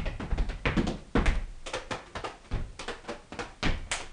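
Irregular thumps and taps, about three a second, of a person dancing on a wooden floor: feet stomping and shuffling on the boards.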